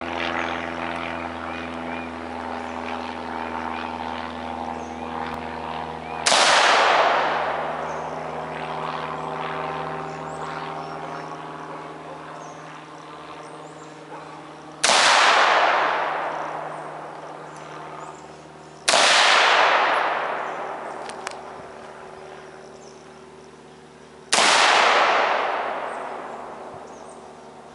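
Four single AR-15 rifle shots, several seconds apart, each a sharp crack followed by a long fading echo, over a steady droning hum.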